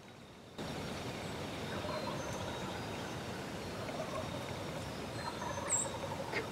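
Several wild turkey gobblers gobbling off in the distance, over a steady background hiss.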